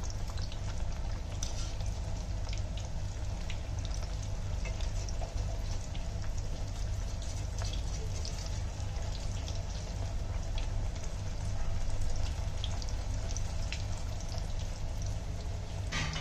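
Pakoras deep-frying in hot oil in a kadhai: a steady sizzle with scattered small crackles and pops as the batter puffs up, over a steady low hum.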